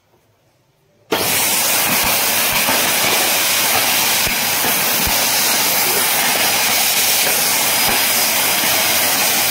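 Agaro Regal Plus 2-in-1 800-watt vacuum cleaner switched on about a second in, its motor running with a loud, steady hiss of suction as it picks up bits of paper and dust. A few brief low knocks come through.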